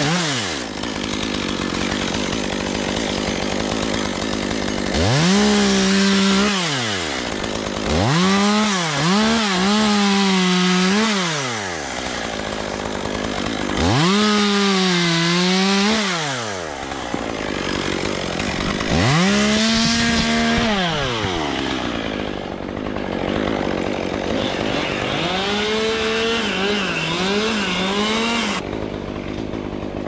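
Gas chainsaw revved to full throttle in about five bursts, dropping back between them, its pitch sagging and wavering during some bursts as it works through wood.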